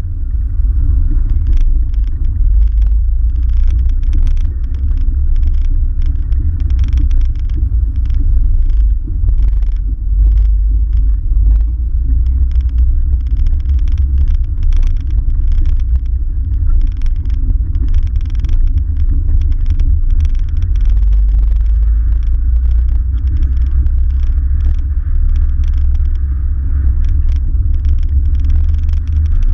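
GoPro camera making irregular clicking and rattling noises over a loud, steady, deep rumble.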